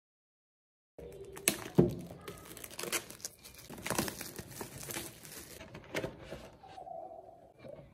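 Clear plastic shrink-wrap on a cardboard headphone box crinkling and tearing as it is peeled off, with sharp crackles, starting about a second in. Near the end it gives way to softer rubbing as the box is slid out of its cardboard sleeve.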